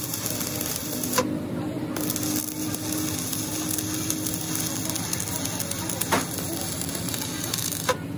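Stick (electrode) arc welding on a steel truck axle housing: the arc's steady crackle. It cuts out briefly about a second in, then resumes and stops just before the end, with a few sharp clicks.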